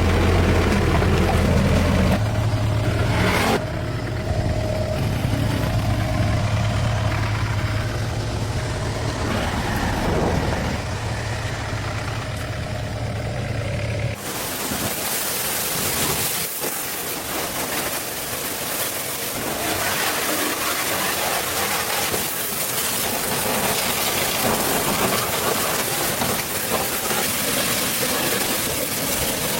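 A vehicle engine running steadily for about the first half. It then cuts off abruptly into a steady hissing noise that has no engine hum under it.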